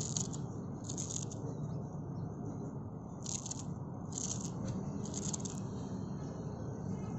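Small kitchen knife cutting through a bunch of fresh coriander held in the hand, a handful of short, crisp cuts through the stems spaced irregularly about a second apart, over a steady low background hum.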